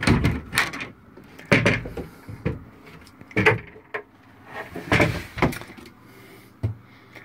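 A metal door latch clicking and a wooden head door knocking as it is opened, followed by a string of light knocks and clunks at uneven intervals.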